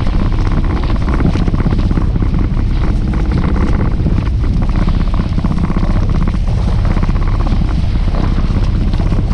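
Fishing boat's motor running steadily under way, with wind buffeting the microphone.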